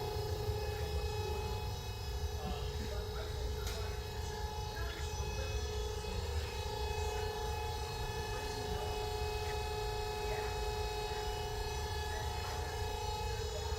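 KMT H310SA hydraulic mitering bandsaw running steadily: a constant machine hum with low rumble and a few steady whining tones from its motor and hydraulic unit, with a few faint clicks over the top.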